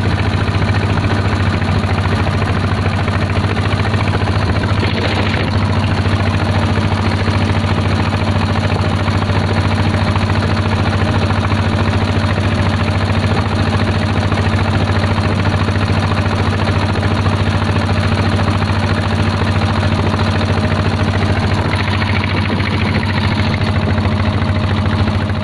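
Motorboat engine running steadily at cruising speed, a constant low drone with no change in pitch.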